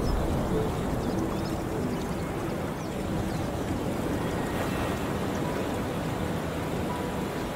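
Steady rush of water like waves or surf, with faint held musical tones underneath.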